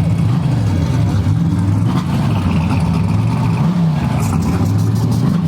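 Drag race car engine running loud and rough, its pitch wavering up and down with light revs and dipping briefly a little before four seconds in, with a few sharp clicks near the end.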